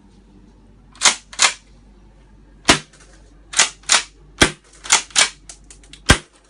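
Tokyo Marui KSG gas-powered pump-action airsoft shotgun being fired three times. Before each sharp shot the pump is racked back and forward, giving a pair of clacks.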